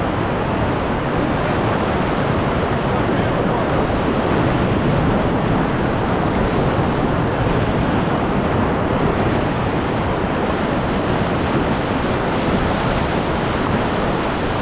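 Whitewater rushing through a creek rapid: a loud, steady rush of water with no break.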